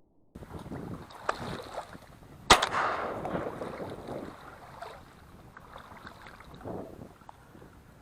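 A single shotgun shot about two and a half seconds in, its report trailing off over the next second. Rustling and small knocks come before and after it.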